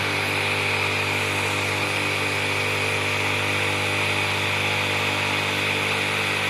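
Electric bench grinder with a sanding wheel running steadily, spinning freely: an even motor hum with a high whine above it.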